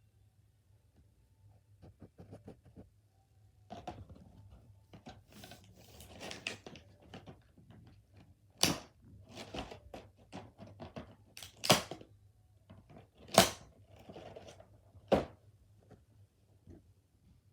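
Packaging being handled and torn open: scattered rustling and crinkling, with four sharp, loud rips or snaps in the second half.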